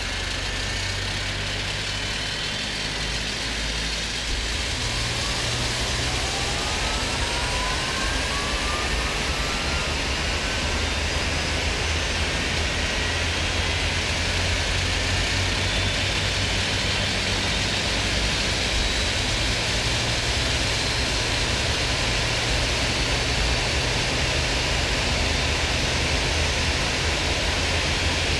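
Airbus A320 turbofan engines on the ground: a turbine whine climbing steadily in pitch from about four seconds in, as an engine spools up, over a steady low rumble and hiss.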